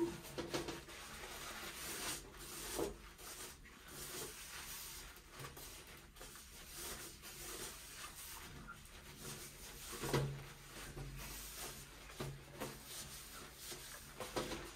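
Paper towel rubbing over a mirror's glass, wiping off glass cleaner, faint, with a few soft knocks along the way.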